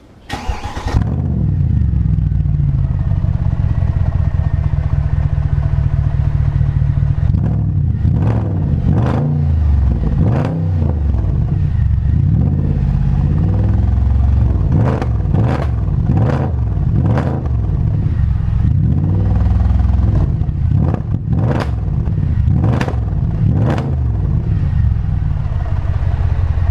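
Mercedes-AMG C63 507 Edition's 6.2-litre V8 heard through an aftermarket exhaust with the resonators deleted. It starts with a sharp flare about half a second in and settles to a deep idle. From about a quarter of the way in it is given a string of about a dozen quick throttle blips, each rising and falling back, then it returns to idle near the end.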